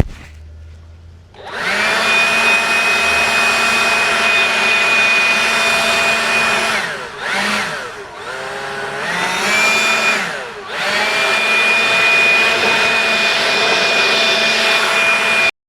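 Compressed-air spray gun hissing with a steady whistle while the trigger is held, easing off and coming back twice in the middle, then stopping suddenly near the end.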